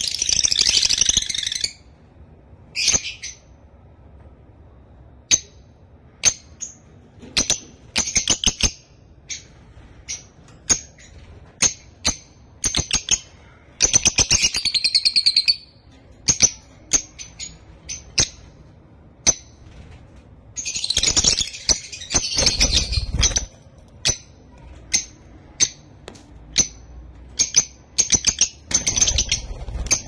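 Lovebirds chirping: short, sharp, high chirps every second or so, with longer bursts of rapid chattering near the start, in the middle and again toward the end.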